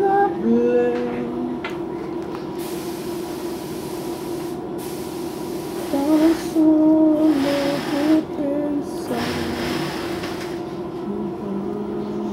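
Four bursts of hissing, each one to two seconds long, come one after another from about three seconds in. Between them a voice holds long sung or hummed notes over a steady hum.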